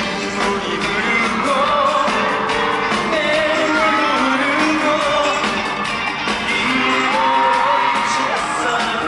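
Live pop song with singing over a loud backing track, played through a concert hall's sound system and recorded from among the audience.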